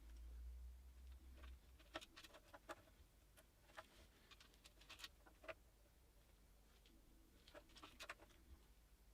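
Faint scattered clicks and light taps of engine parts being handled during assembly, over a low hum that stops about a second and a half in.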